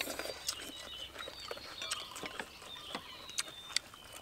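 Close-up eating sounds: crisp crunching and small wet mouth clicks as raw cucumber and green papaya salad are chewed, many irregular sharp crunches. Faint high thin bird calls run behind.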